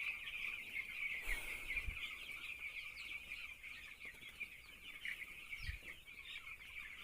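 A flock of young farm chickens peeping together: a dense, continuous chatter of many high chirps, with a couple of soft low bumps.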